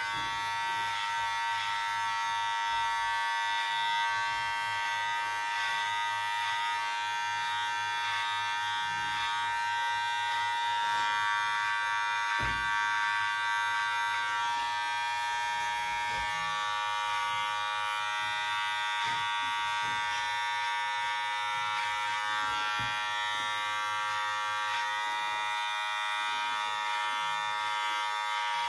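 Electric hair clipper running steadily while trimming a beard to shape from the front, a constant buzz with a few faint knocks.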